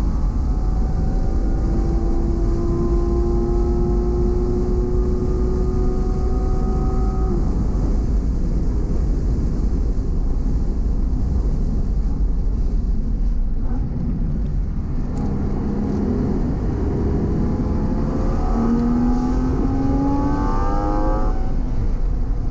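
Porsche engine heard from inside the car on track, pulling steadily with its note slowly rising. About seven seconds in the engine note drops away, leaving steady wind and tyre noise as the car slows for a corner. The note returns about 15 seconds in and climbs again as the car accelerates out.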